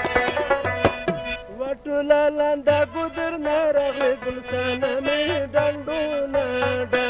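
Pashto folk ensemble music with tabla and harmoniums: a quick run of plucked notes in the first second or so, then a wavering melody held over a steady tabla pattern.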